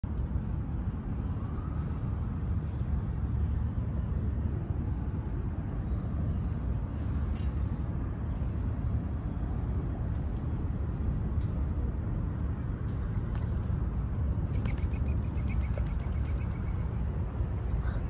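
Steady low outdoor rumble, with a few faint bird chirps now and then.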